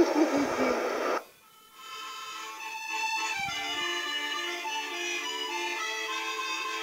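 A voice trails off in the first second. After a short break, instrumental music with long held notes starts about two seconds in.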